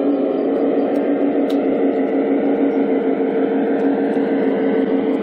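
G-scale model diesel locomotive in Santa Fe Super Chief livery running along the track, giving a steady hum.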